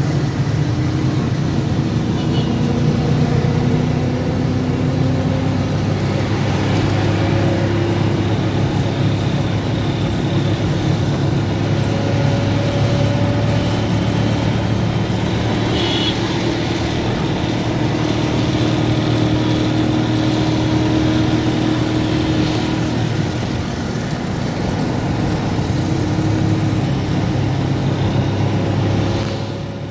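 Steady traffic noise heard from a vehicle driving along a busy city road: engine and road noise with passing motorcycles and cars.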